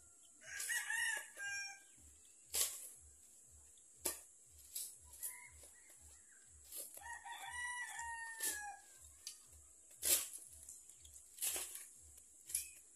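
A rooster crowing, briefly near the start and again at length about seven seconds in, the longer crow falling at its end. Several sharp knocks of a digging blade striking the soil come between the crows.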